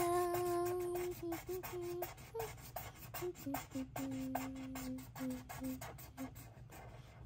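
A child holding a sung note, then humming a wordless tune in short notes and one longer low note, over rapid scratchy strokes of a felt-tip marker colouring on paper.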